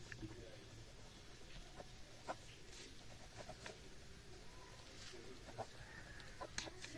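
Near silence: faint room tone with a low hum and scattered soft clicks.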